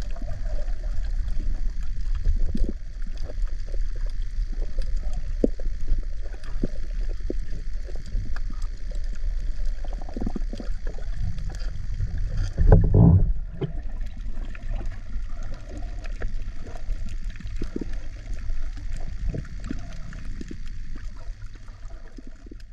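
Muffled water noise from a camera held just below the surface in waves: gurgling and sloshing with small knocks, and one louder surge of water noise a little past halfway.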